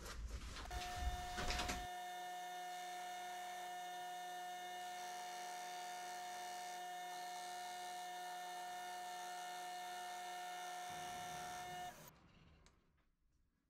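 Metal lathe running with a steady whine as it turns a brazed cast iron pulley, the braze being machined down. A short burst of louder noise comes about a second in, and the whine cuts off about twelve seconds in.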